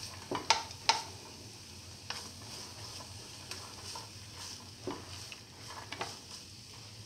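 Spatula scraping and knocking against a frying pan while chopped onion sautés in oil with a faint steady sizzle. The loudest strokes come in the first second, with lighter scrapes every second or so after.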